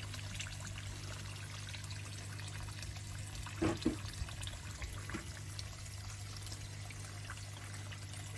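Water trickling and pouring into a small koi pond, over a steady low hum. A couple of short, brief sounds break in a little after the middle.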